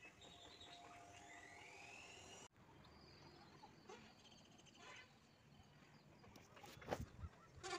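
Faint open-air farmland ambience with distant birds calling, including a rising whistled call in the first couple of seconds. A few sharp clicks sound near the end.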